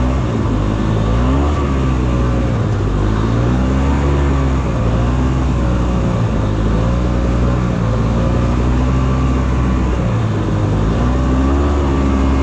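Old Ski-Doo Tundra snowmobile engine running under way, revs rising and falling with the throttle.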